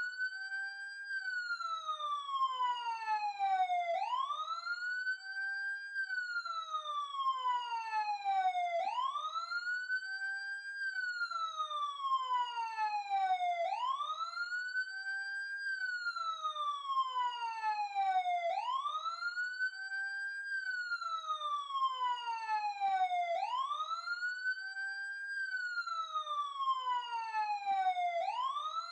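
Emergency siren wailing in a repeating cycle: the pitch rises quickly, then falls slowly, starting over about every five seconds.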